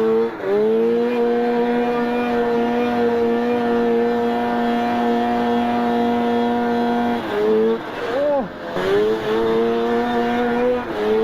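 Snowmobile engine held at high, steady revs while the sled skims across open water. Past the middle the pitch dips and swings back up twice, then holds steady again before dropping once more near the end.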